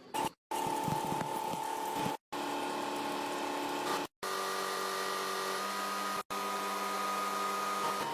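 A steady hissing machine noise with several steady tones over it. It is cut into four stretches by short, fully silent gaps about every two seconds.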